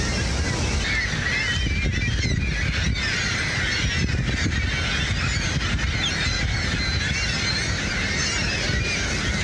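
Many gulls calling at once, a constant overlapping chatter of short high squealing calls over the steady low roar of the waterfall.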